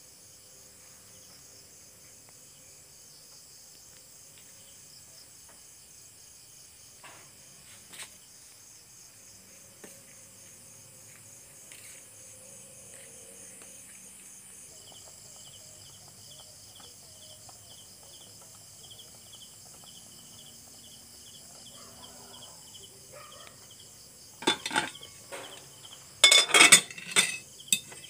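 Insects chirping steadily in fast, even pulses, with a second, lower-pitched pulsing chirp joining about halfway through. Near the end come two short bouts of loud clattering from kitchenware being handled.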